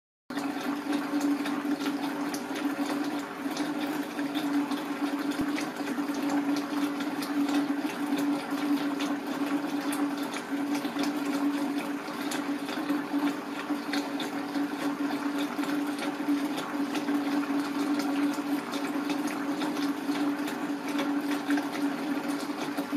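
Brook water flowing past an underwater camera, heard as a steady rushing hiss with a constant low hum and many small ticks.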